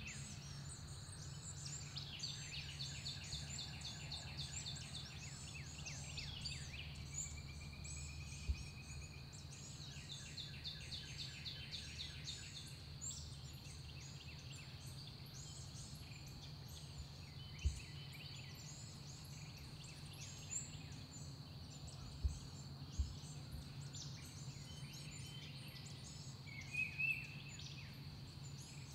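Outdoor springtime ambience of songbirds: two rapid trilled songs of a few seconds each in the first half, with scattered high chirps throughout over a steady high insect drone and a low steady hum. A few brief low knocks stand out, several of them in the second half.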